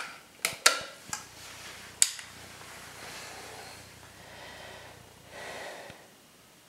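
Sharp clicks and clacks from the Air Arms TX200 underlever air rifle being handled, five in the first two seconds, then faint breathing.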